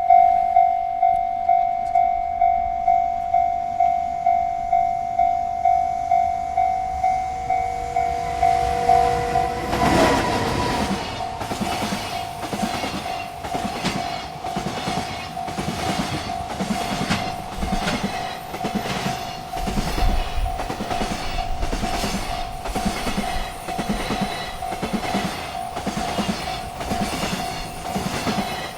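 Railroad crossing bell ringing about twice a second. About ten seconds in a freight train reaches the crossing, and its wagons roll past with a steady rhythmic clatter of wheels over the rail joints while the bell keeps ringing underneath.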